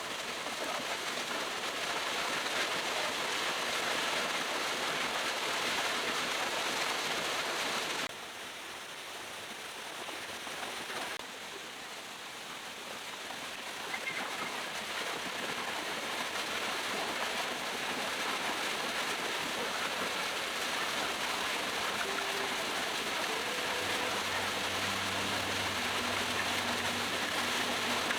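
Waterfall water rushing and splashing in a steady, even roar of white noise, dropping quieter for about three seconds a third of the way in before returning.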